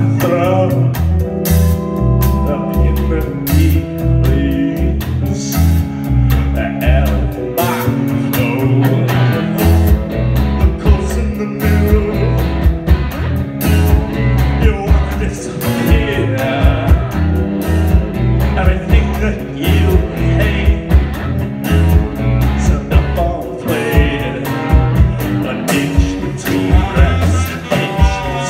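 Live rock band playing, with drum kit, electric guitar and keyboard, and a lead singer.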